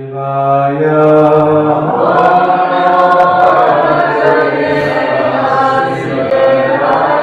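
A man's voice chanting a devotional mantra in long held notes, joined by a group of voices chanting along about two seconds in.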